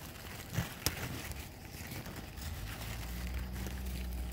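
Bean leaves and vines rustling against a gloved hand and the camera while pole beans are picked by hand, with two sharp clicks about half a second apart near the start. A steady low rumble sets in about halfway through.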